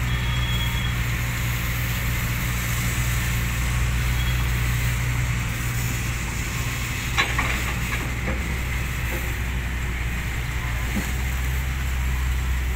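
Diesel engines of a Hyundai 220LC-9S excavator and a dump truck running steadily, with a sharp knock about seven seconds in and a few lighter ones after it as a bucketload of soil and clods drops into the steel truck bed.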